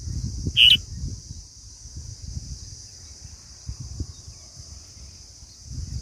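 A single short, sharp bird chirp about half a second in, over a steady high hiss and an uneven low rumble.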